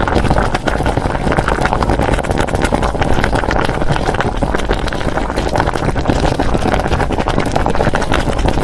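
Pot of beef short-rib soup at a hard rolling boil, bubbling and crackling steadily and loudly.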